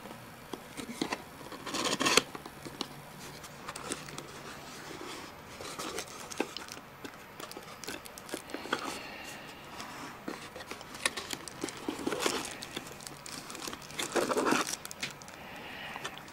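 Hands opening and handling a small cardboard box, with flaps scraping, light taps and the plastic wrapping inside rustling. The rustling is louder about two seconds in and near the end.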